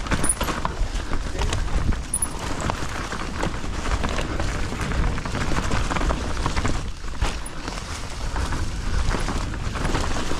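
Mountain bike riding down a dirt forest trail: a steady rush of tyre and wind noise over constant clicking and rattling from the bike running over roots and rocks, easing briefly about seven seconds in.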